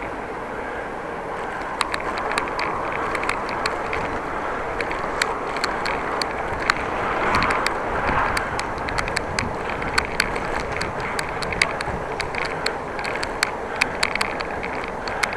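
Riding a bicycle: a steady rush of wind and tyre noise with frequent small irregular clicks and rattles.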